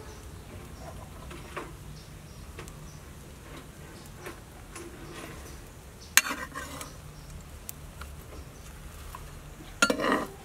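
A metal spatula clanks once against a frying pan about six seconds in, then scrapes and knocks in the pan near the end as it folds an egg-fried sandwich over. A faint steady low hum runs underneath.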